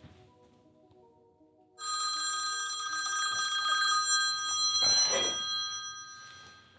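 Smartphone ringtone that starts suddenly about two seconds in and rings steadily: an incoming call.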